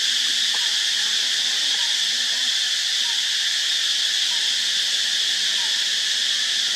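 Steady, unbroken chorus of insects droning at a high pitch, with faint short chirps about once a second.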